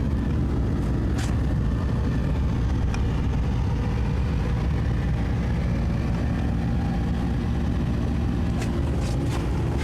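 Cabin air conditioner of a small cruiser running: a steady low hum and rumble, with a few faint ticks about a second in and near the end.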